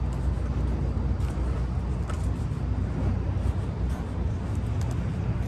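Steady low outdoor rumble with no single clear source, carrying a few faint ticks.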